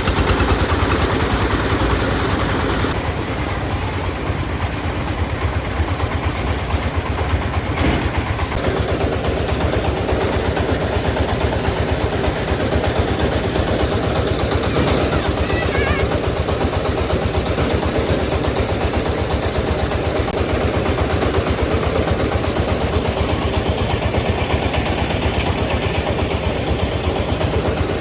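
A small engine, most likely driving farm machinery at the rice harvest, running steadily in a rapid, even chug of firing strokes, with a thin steady high whine above it.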